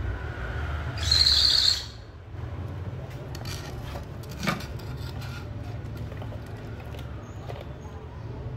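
Electric hair clipper buzzing steadily as it cuts hair over a comb. About a second in there is a short, loud, high bird call.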